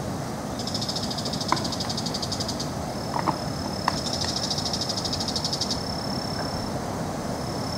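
Insects calling in high, rapidly pulsing trills that start and stop several times, with a steady high whine in the middle, over a constant rushing background noise. A few short clicks sound now and then.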